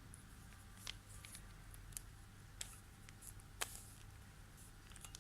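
Faint, scattered clicks of a Rubik's cube being turned by hand, a few sharp ticks spread over several seconds, over a low steady hum.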